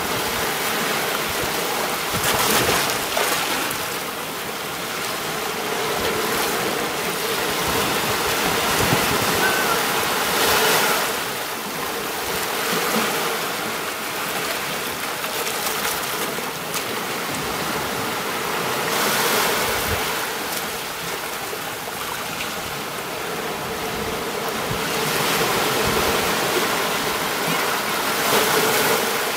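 Sea waves washing onto a beach in a continuous hiss of surf that swells and eases every few seconds as each wave breaks and draws back.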